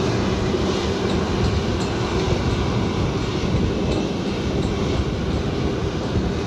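A large engine running steadily, with a constant low hum and rattle.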